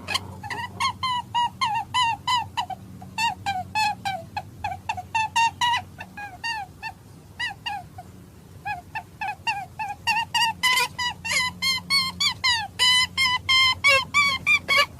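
Hare calling: a fast series of short, high squealing cries, about three to four a second, broken by a pause of under two seconds midway.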